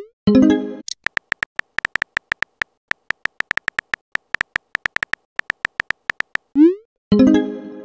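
Chat-app sound effects: a short chime as a message arrives, then a quick run of keyboard tap clicks, each with a faint beep, as a message is typed. About six and a half seconds in comes a rising whoosh as the message is sent, followed by another chime.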